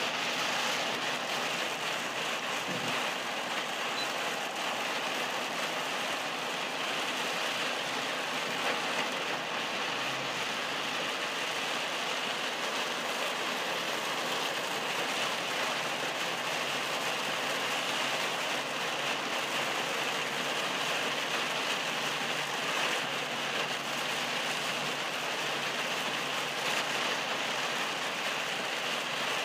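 Heavy rain beating steadily on a car's windshield and body, heard from inside the cabin of the moving car.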